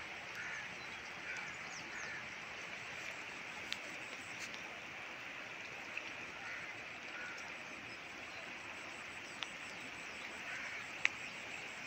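Steady rushing hiss of floodwater flowing across flooded fields, with a few short sharp clicks.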